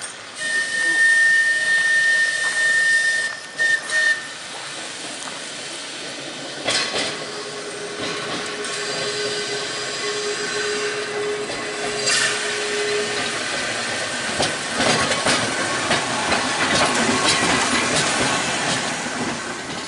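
Manx Electric Railway Car 1, a vintage electric tramcar, running past on its rails. A steady high squeal lasts the first few seconds, then a lower steady tone and clicks over the rail joints. The rumble grows louder near the end as the car draws close and passes.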